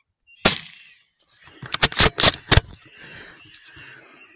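Rifle shot about half a second in, its report trailing off, then a rapid string of about six more sharp cracks a second later.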